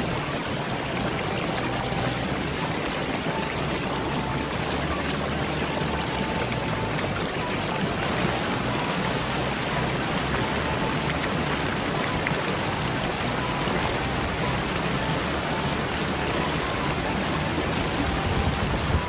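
River water rushing steadily over rocks in fast, shallow riffles.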